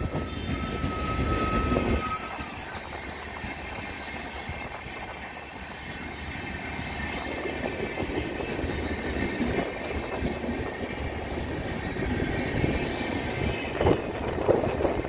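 Passenger coaches of an express train rolling past, their wheels clattering over the rails, with a thin high squeal in the first two seconds and a few sharp knocks near the end.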